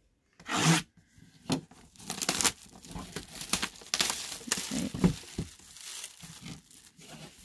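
Clear plastic shrink wrap being torn open and pulled off a cardboard box, then crumpled, in a run of irregular crackles and rips. The sharpest rip comes about half a second in.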